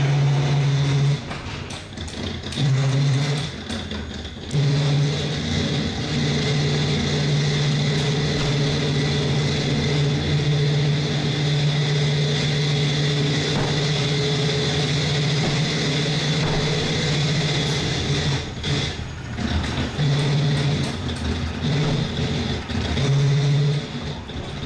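Pretzel dark-ride car running along its track: a loud steady low hum with a fainter high whine, dropping out briefly about four times.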